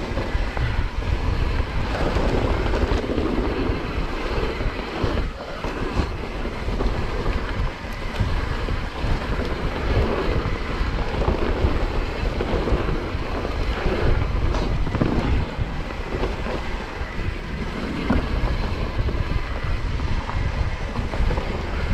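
Wind rushing over an action camera's microphone as a mountain bike rolls down a dirt trail, with a steady rumble of the tyres and the bike rattling over roots and rocks. A few sharp knocks stand out, about five and six seconds in and again near fifteen seconds.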